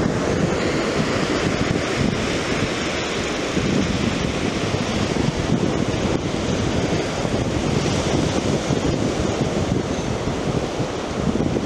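Ocean surf breaking and washing on a beach, with wind buffeting the microphone in a steady low rumble.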